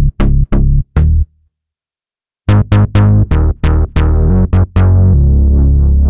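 Synthesizer bass patches from UVI's Sunbox soundbank for Falcon, played as short staccato notes. They stop for about a second, then a second bass patch plays a quick run of short notes that ends in a held low note.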